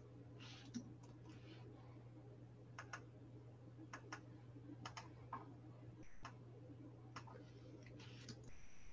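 Faint clicks of a computer mouse and keyboard, a dozen or so scattered short clicks, many in quick pairs, over a low steady electrical hum.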